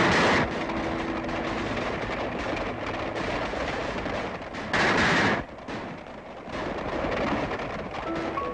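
Old film soundtrack of a horseback chase: a dense clatter of galloping hooves, with two loud gunshots, one at the very start and one about five seconds in. Music comes back in near the end.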